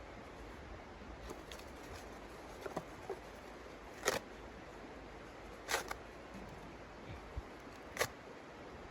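A handful of short, sharp crackles or clicks, about five, scattered irregularly over a steady hiss.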